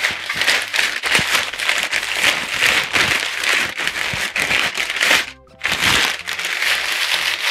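Sheet of stiff brown kraft paper being crumpled and scrunched by hand, a loud, dense crinkling with a brief pause about five seconds in.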